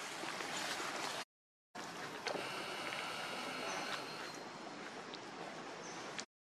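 Steady outdoor background hiss that cuts out to silence twice, briefly, with a few faint high chirps and light ticks.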